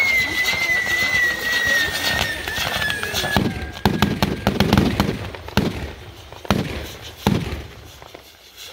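Firecrackers going off in a string of sharp bangs, about half a dozen spread over the second half. Under the first half, a high whistle slowly falls in pitch and fades out.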